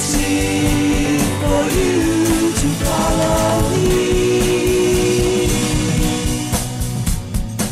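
Background song: a singing voice holding long notes that step in pitch, over a band with guitar and a steady beat.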